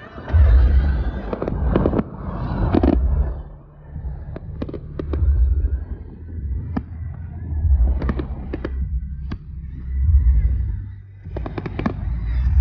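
Fireworks going off: deep booms of shells bursting about every two seconds, with sharp cracks and crackling between them.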